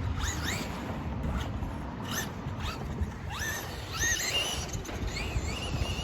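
RC car's electric motor whining up in pitch in several quick bursts of throttle, one longer rise levelling off past the middle and a wavering held whine near the end, over a low rumble.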